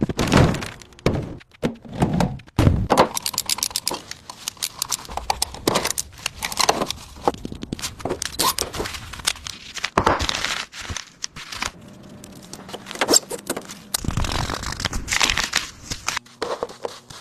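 Irregular thunks, knocks and metallic clatter of hand work on an old car's rusted body, some strikes heavy and some light rattling.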